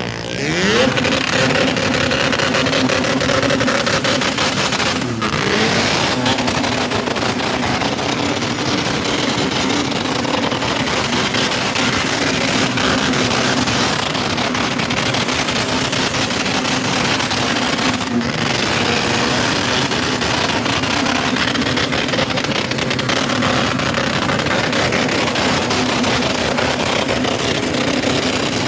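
Rotary engine of an RX-7-powered van revving up, then running hard at a steady high pitch. Its note breaks briefly twice, about five seconds in and again near eighteen seconds, as with gear changes.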